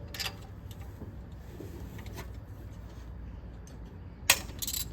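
Metal hand tools clicking and clinking against the engine while spark plugs are being removed, a few light ticks early on and a quick cluster of sharp clinks near the end, over a steady low hum.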